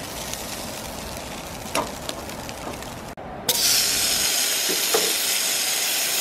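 Food frying in a stainless pot on a camp stove, with a sharp metal clink about two seconds in. After a brief break just past three seconds, a lump of fat sizzles steadily and louder in a hot cast iron skillet.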